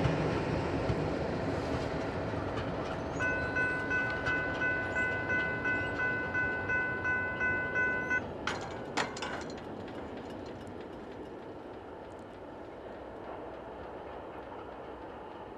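Rumbling rail noise from a train fading away, then a railroad grade-crossing bell ringing about twice a second for some five seconds before it cuts off suddenly. Two sharp clicks follow, then the faint steady rumble of an approaching diesel freight train.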